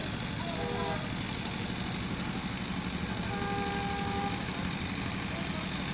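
Steady road-traffic rumble with vehicle horns: a couple of short horn tones about half a second in, then one held horn note lasting about a second, a little past the middle.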